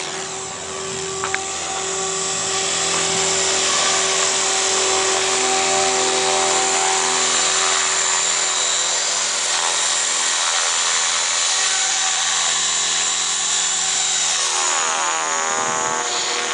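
Align T-Rex 550 electric radio-controlled helicopter flying, with a steady high motor whine and rotor buzz. Near the end the pitch shifts as it climbs high overhead.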